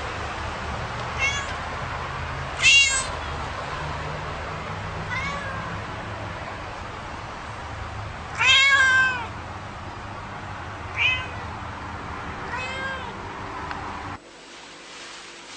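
A house cat meowing about six times, with short calls spaced a few seconds apart and the loudest two near 3 s and 8.5 s, over a steady low background hum that cuts off near the end.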